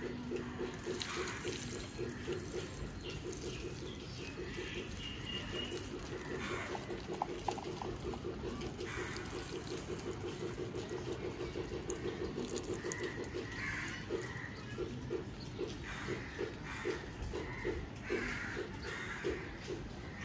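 Water running and splashing down onto leafy balcony plants, with a fast, even train of low animal calls pulsing several times a second and a few higher chirps from birds.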